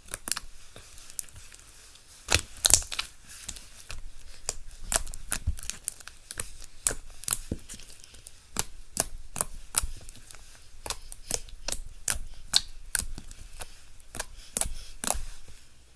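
Slime being squeezed and stretched by hand, making irregular crackling pops and sharp clicks, several a second at times.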